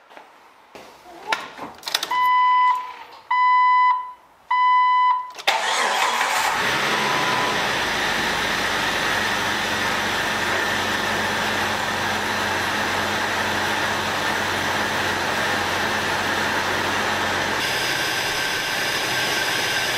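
A 2000 Jeep Wrangler TJ's dashboard warning chime sounds three times. About five seconds in the engine starts and then runs steadily, on the fourth try at starting after the heater core replacement.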